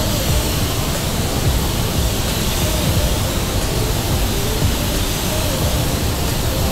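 Steady, loud rush of air in a paint booth, the hiss of spray-painting equipment such as the spray gun and booth ventilation, with faint music underneath.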